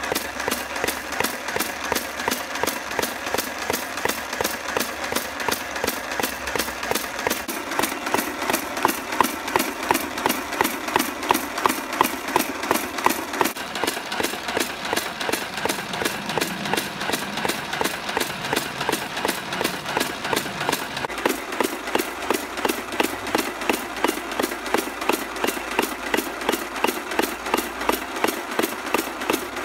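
Nerf Mega Mastodon flywheel blaster firing in full auto: the battery-driven flywheels whir steadily while the pusher sends Mega darts out in a rapid, even rhythm of about three shots a second.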